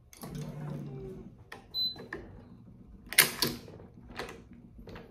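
Handling noise at a racquet stringing machine while a string is tied off: a low hum at first, then a scatter of light clicks and rattles of string, clamps and tools, the loudest about three seconds in.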